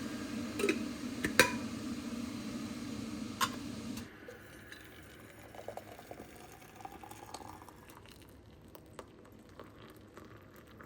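Water boiling in a kettle, a steady rush with a few sharp clicks, cutting off abruptly about four seconds in. After that come faint small clinks and taps, as of a mug being handled for tea.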